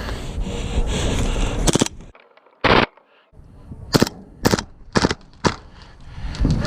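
Airsoft guns firing: a short loud burst about two and a half seconds in, then four single sharp shots about half a second apart. Before the shots there is a steady rumble of wind and movement on the microphone.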